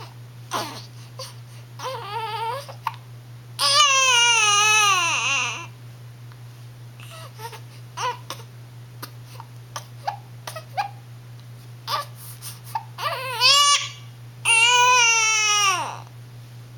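A one-month-old baby girl crying while sleepy and hiccuping: a short fussy cry, then two loud wails about two seconds long, each falling in pitch at the end, with quiet stretches between.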